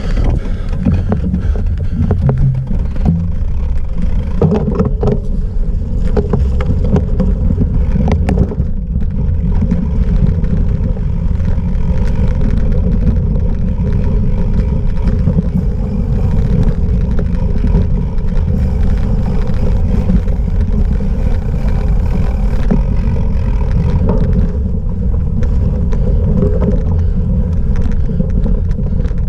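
Steady rumbling riding noise from a cyclocross bike at race pace over rough ground: wind buffeting the microphone, mixed with tyre and frame rattle, and a few sharp knocks from bumps about five and nine seconds in.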